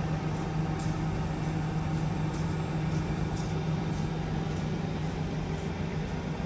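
A steady, low engine-like drone with faint scattered ticks over it.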